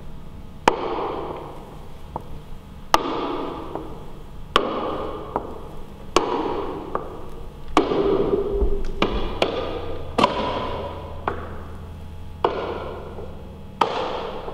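Slow, sharp taps of a cane striking a wooden floor, about one every one and a half to two seconds with lighter taps between, each ringing out in a long cathedral echo.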